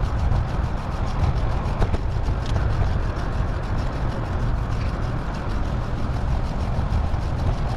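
Steady wind noise buffeting the microphone of a moving bicycle, a constant low rumble with a hiss above it.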